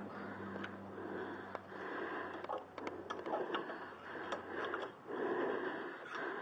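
A man breathing close to the microphone in short, regular breaths about once a second, with scattered light clicks and scrapes of a steel screwdriver working against a rear brake caliper.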